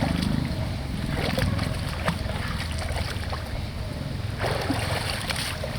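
River water running and splashing lightly over a low steady rumble, with a few faint clicks. The hiss grows brighter about four seconds in.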